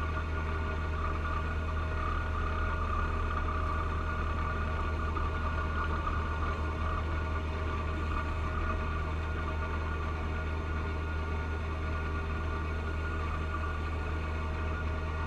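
John Deere 1025R tractor's three-cylinder diesel running steadily under load while its front-mounted 54-inch snow blower throws snow, a high whine over the engine's low drone.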